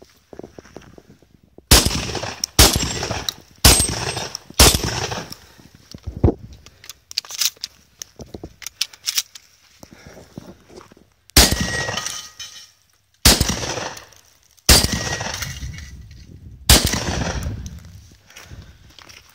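Shotgun fired eight times in two strings of four, the shots about a second apart, each blast trailing off over a second or so. Between the two strings come quieter clicks of shells being pushed into the magazine.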